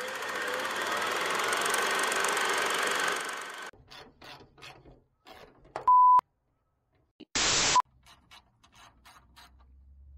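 A whirring, clattering film-reel sound effect for about three and a half seconds, then a few faint short sounds, a steady one-tone beep about six seconds in and a half-second burst of hiss just after seven seconds.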